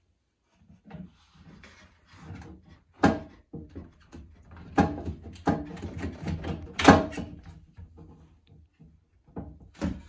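Plastic sink drain parts knocking and scraping as they are handled and pushed together. Several sharp clunks stand out, the loudest about three and seven seconds in.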